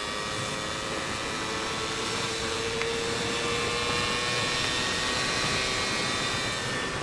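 Suzuki Satria 120R two-stroke single-cylinder engine held at full throttle in fifth gear, its pitch climbing slowly as the bike gains speed, with wind rushing over the microphone.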